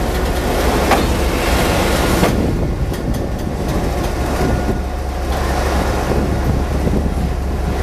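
Railway locomotive pulling in, with a steady low engine rumble and a few sharp knocks in the first couple of seconds.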